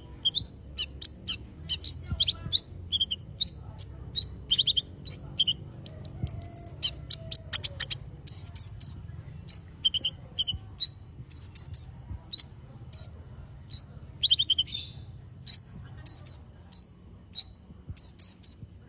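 A konin songbird singing vigorously (gacor): a fast, unbroken run of short high chirps and quick up-sweeping whistled notes.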